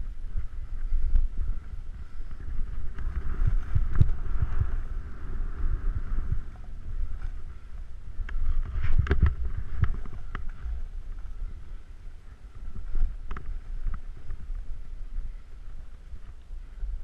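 Wind rushing over a body-mounted action camera's microphone during a snowboard descent, with the board hissing and scraping over packed, tracked snow. Sharp thumps about four seconds in, twice around nine to ten seconds in, and again near thirteen seconds, as the board hits bumps.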